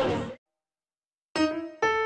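Live band music with singing cuts off a moment in, then a second of dead silence. Piano chords begin near the end, a new chord about every half second.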